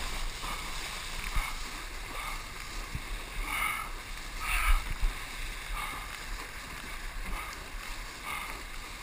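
Ocean water lapping and sloshing close to the microphone, with a small splash about every second, over a steady low rumble of wind on the microphone.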